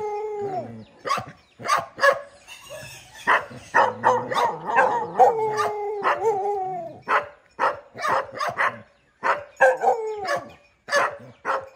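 Several dogs barking in sharp, repeated barks, mixed with three drawn-out whining cries that slide down in pitch; the longest cry falls in the middle.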